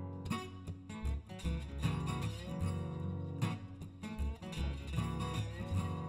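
Background music on guitar, plucked and strummed notes over a steady low accompaniment.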